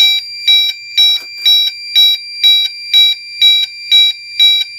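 Gentex Commander 3 (GEC3-24WR) horn/strobe sounding in chime mode, pulsed by the fire alarm panel's double-time (fast march time) coding: an electronic chime of several steady tones repeating about twice a second.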